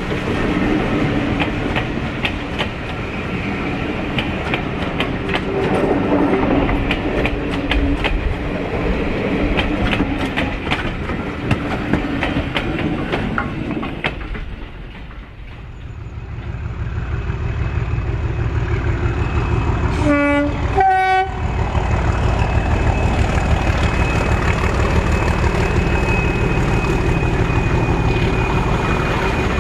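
A train running past, its wheels clicking rapidly over rail joints; then a steady low throb of a train on the move. About two-thirds of the way through, a horn gives two short blasts on two different notes.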